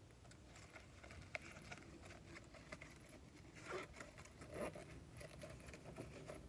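Faint handling sounds of a small fabric doll toiletry bag and the item being packed into it: soft rustles and light taps, with two slightly louder brief scrapes a little past halfway.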